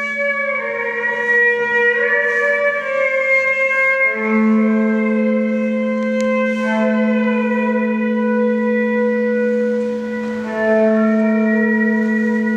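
Background music of slow, sustained chords held over a steady low drone note, the chord shifting every two or three seconds.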